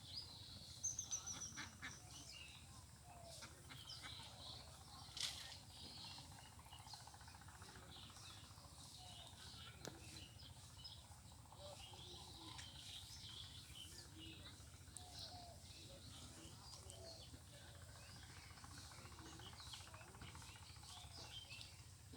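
Faint outdoor ambience of many short bird chirps and calls scattered throughout, over a low steady hum, with a few sharp knocks in the first six seconds.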